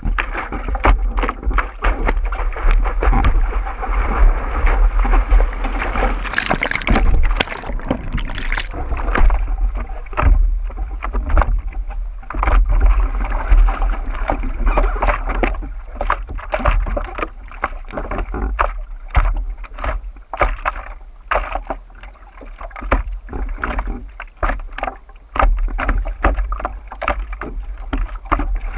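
Water splashing and slapping against a surfboard as it is paddled prone through the chop, heard close from a camera on the board's nose, over a low rumble of water and wind on the microphone. A louder burst of splashing comes about seven seconds in.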